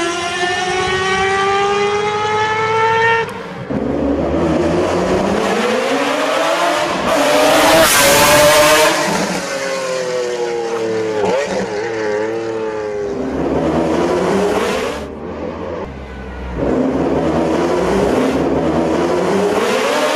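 Race car engine sound effect revving hard: the pitch climbs for about three seconds, then falls and climbs again several times, like gear changes and passes. There is a loud rushing surge about eight seconds in.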